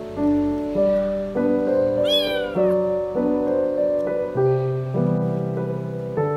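Gentle piano background music, and about two seconds in a kitten meows once, a short call falling in pitch.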